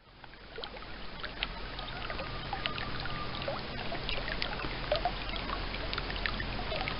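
Shallow creek water running and trickling over rocks: a steady rush dotted with many small, quick splashes, fading in over the first second or two.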